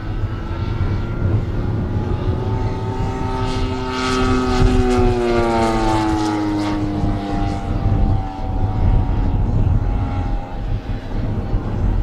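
Radio-controlled scale model of a Morane-Saulnier D-3801 fighter flying past, its propeller drone growing loudest about four to six seconds in, then dropping in pitch as it goes by and fades.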